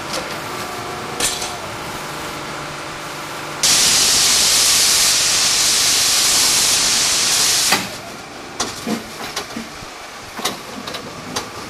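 Narrow-gauge steam locomotive letting off a loud hiss of steam for about four seconds, which starts and stops abruptly. Quieter idling train sounds with a few clicks and knocks lie either side.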